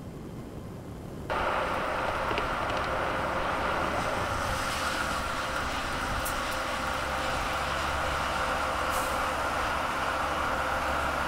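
Steady rushing road noise from a Mercedes-Benz GenH2 hydrogen fuel-cell truck on the move, with no engine note; it starts abruptly about a second in, a few faint clicks breaking through.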